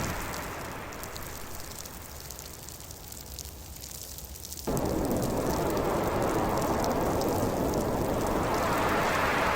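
Winter storm noise. A gust of wind dies away at the start, leaving a quieter hiss with fine pattering. About halfway through, the full storm noise cuts back in suddenly and holds steady.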